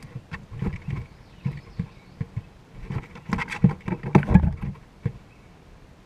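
Irregular knocks, scrapes and rustles of a chipmunk shifting about inside a small wooden feeder box right by the microphone, busiest from about three to four and a half seconds in.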